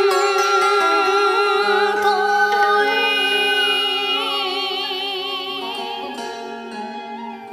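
Vietnamese poetry chanting (ngâm thơ): a woman's voice holds long, wavering notes with vibrato over instrumental accompaniment, growing quieter over the last couple of seconds.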